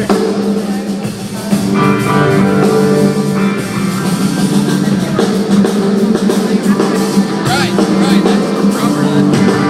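A band playing, with guitar and drum kit: held chords that change a few times, over steady drum hits.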